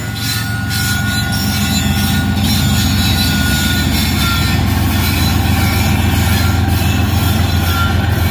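Lead diesel locomotives of a BNSF freight train passing close by, their engines giving a deep, steady rumble that builds over the first couple of seconds. Faint, brief wheel squeals come and go over it.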